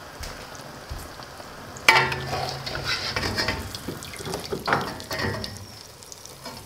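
Samosas deep-frying in a wok of hot oil with a steady sizzle. About two seconds in, a stainless steel skimmer goes into the oil: the sizzling gets louder, with several sharp metal clicks and scrapes against the pan as the samosas are lifted out, then it eases off near the end.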